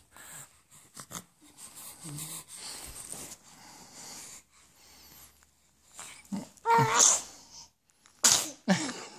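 Young infant fussing: quiet at first, then one short, loud pitched cry about seven seconds in, followed by two breathy, wheezy outbursts near the end.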